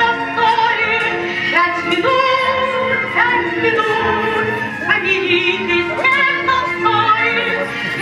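Music with an operatic singing voice, the held notes sung with a wide vibrato over instrumental accompaniment.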